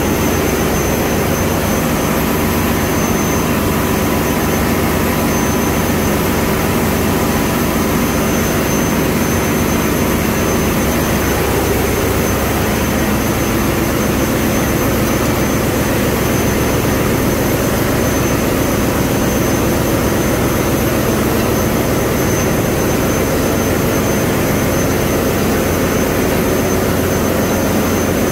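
Steady, loud drone of running diesel machinery in a ship's engine room, with a thin high whine on top.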